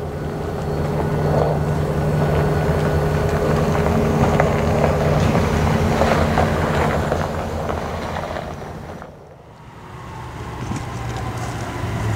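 Diesel-electric freight locomotives' engines running steadily with a low drone. About nine seconds in it fades out, and a fainter, distant diesel drone follows.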